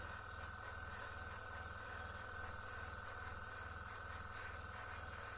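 Steady hiss of a Gaahleri GHAD-68 trigger airbrush spraying paint, with a low steady hum under it.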